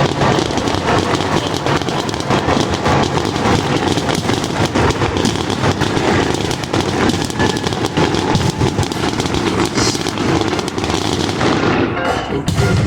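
Fireworks going off in a dense, continuous barrage, with rapid crackling and popping over a steady rumble.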